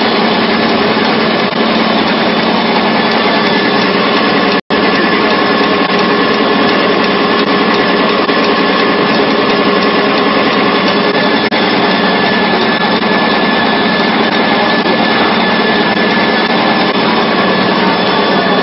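PLA drinking straw making machine running steadily: a loud, even mechanical din with a steady hum through it. It cuts out for a split second about four and a half seconds in.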